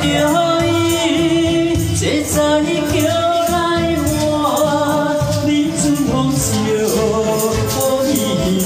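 A Taiwanese Hokkien folk song, sung with long held notes over instrumental accompaniment with a steady beat.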